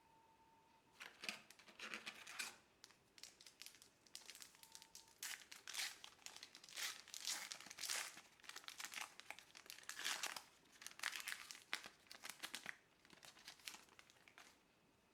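Plastic wrapper of a trading-card pack crinkling in irregular bursts as it is handled and torn open.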